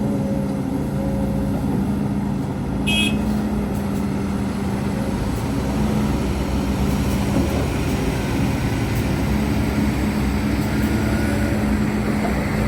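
Heavy diesel earthmoving machinery running steadily, its engine humming at a constant pace. There is a brief high-pitched squeak about three seconds in.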